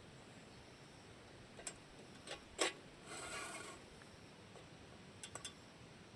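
Scattered light clicks and knocks, the sharpest about two and a half seconds in, followed by a short rustle of under a second, and a quick run of three clicks near the end.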